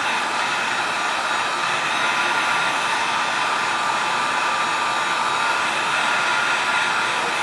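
Handheld hot-air blower running steadily on high, a constant rush of air with a faint whine, heating glued plastic to soften it.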